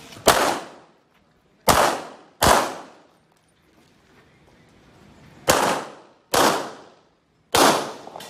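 Six pistol shots from a competitor's handgun, each a sharp crack with a short echoing tail. One comes right at the start, a quick pair about two seconds in, another pair around six seconds in, and one more near the end, with a pause of a few seconds in the middle.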